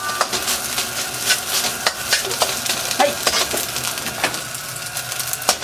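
Rice stir-frying in an iron wok over full heat: a steady sizzle, with a metal ladle scraping and knocking against the wok at irregular intervals.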